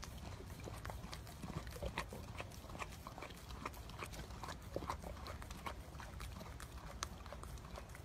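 A Great Dane licking soft-serve ice cream out of a plastic cup: wet, irregular smacking and lapping of the tongue, several licks a second.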